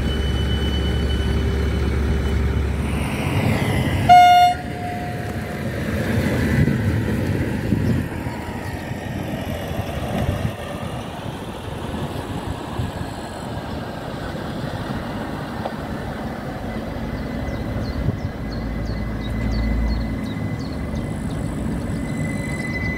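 A train sounds one short horn toot about four seconds in, followed by the rumble of the train running on the rails.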